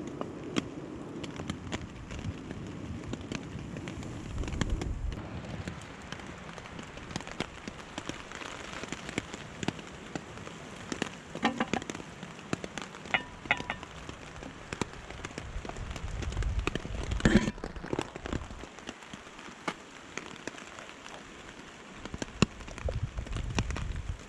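Rain falling steadily, with many small drop ticks on surfaces. A few louder knocks and rustles come in the middle.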